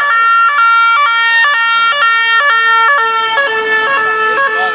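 Two-tone emergency siren on a vehicle, switching between a high and a low note about twice a second; the pitch drops slightly a little past three seconds in.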